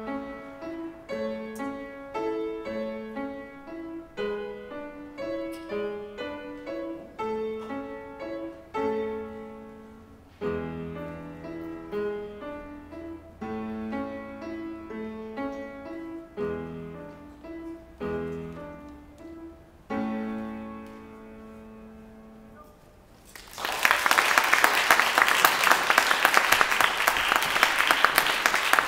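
A grand piano played, a short piece of single notes and chords that ends on a held chord dying away. Near the end an audience breaks into applause, louder than the playing.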